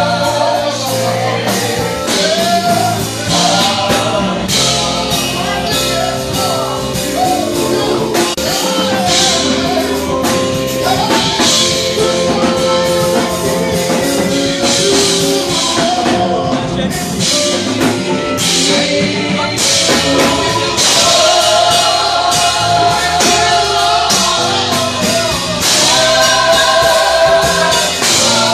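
Gospel worship music: voices singing over a full band with drums keeping a steady beat.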